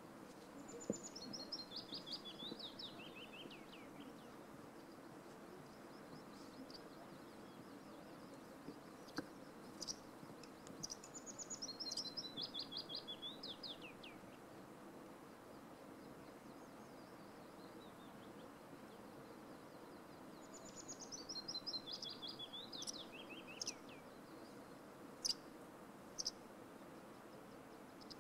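A songbird singing the same song three times, several seconds apart: each song is a quick run of notes falling in pitch, lasting about three seconds. A faint steady hiss lies underneath, and a couple of short clicks come near the end.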